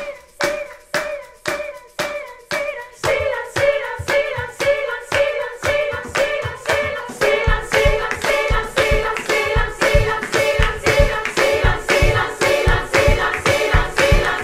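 Background music: steady handclaps about two a second under layered singing voices.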